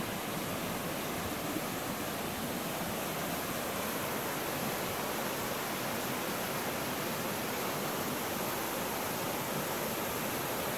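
Waterfall cascading down a sloping rock face, a steady rush of water.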